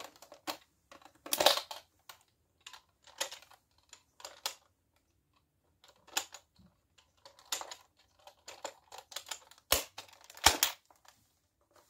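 Plastic clicks and rattles of foam darts being pushed into a spring-powered Nerf blaster, in short scattered bursts, with two louder plastic clacks near the end.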